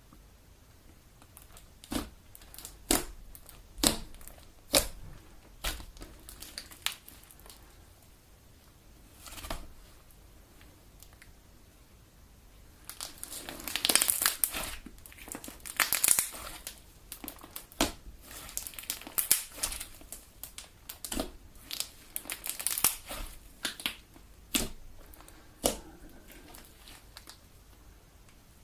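Elmer's Galaxy slime being kneaded and stretched by hand: sharp wet pops about once a second at first, then a denser run of crackling pops and squelches through the second half.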